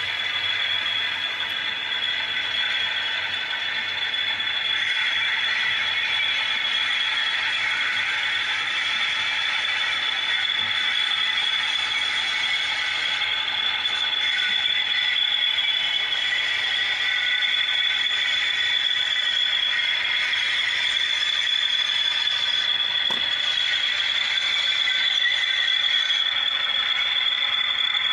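OO gauge model diesel locomotive running slowly along the track: a steady whir and rattle of its small motor and gears, with a constant high whine and one sharp click late on.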